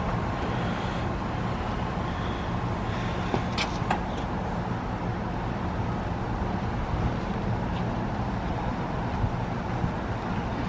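2023 RunTru 2-ton heat pump's outdoor unit running through a defrost cycle: a steady low hum with a continuous rushing noise.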